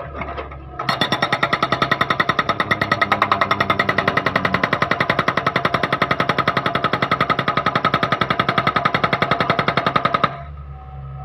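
Okada 650 hydraulic breaker on a Hitachi ZX48U mini excavator hammering: a fast, even run of loud blows that starts about a second in and stops suddenly near the end. A steady engine hum can be heard before the blows start and after they stop.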